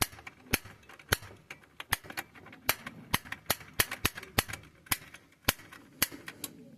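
Piezo spark igniter on a gas water heater's pilot being pressed over and over, sharp snapping clicks about two a second, while trying to light the pilot.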